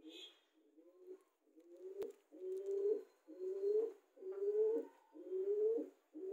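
Pigeon cooing: a steady series of low coos, about one a second, each rising a little in pitch, growing louder after the first two seconds.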